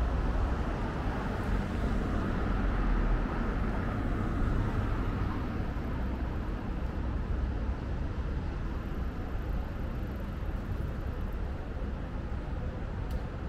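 Steady city street traffic noise: passing cars and a constant road hum with a deep rumble underneath, heard from a moving bicycle.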